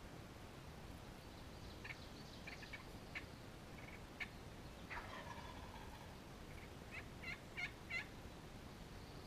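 Wild turkey calling: scattered short, sharp clucks, one longer call that falls in pitch about five seconds in, and a quick run of four sharp calls near the end.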